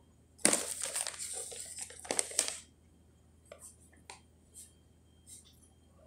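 A plastic packet crinkling and rustling as it is handled for about two seconds, followed by a few faint light taps.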